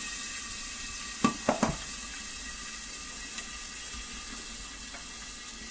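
Steady sizzling of corn kernels toasting in hot fat in a lidded pot, with three sharp pops between one and two seconds in as kernels burst, and a couple of fainter ticks later.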